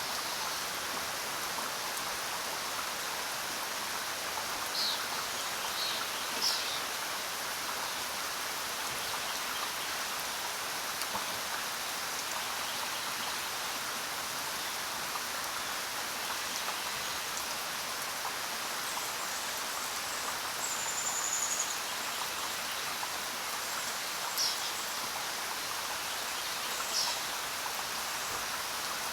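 Steady rain falling, an even hiss, with a few short high-pitched sounds standing out over it and a brief high whistle about two-thirds of the way through.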